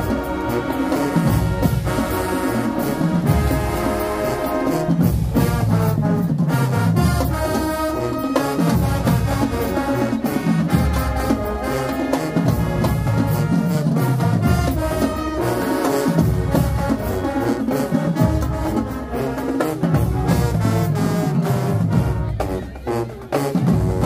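Marching band playing: the brass section holds full chords over a steady beat of bass drums and percussion.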